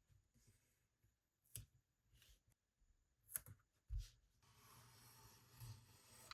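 Faint leatherworking handwork: a couple of sharp clicks and a low thump, then about two seconds of steady scraping.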